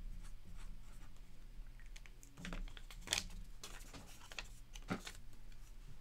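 Faint scratching and light clicks of trading cards and rigid plastic card holders being handled and shuffled, with two sharper clicks about three and five seconds in.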